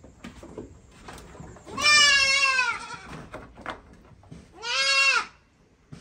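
Goat bleating twice: a long, wavering bleat about two seconds in, then a shorter one that rises and falls in pitch near the end.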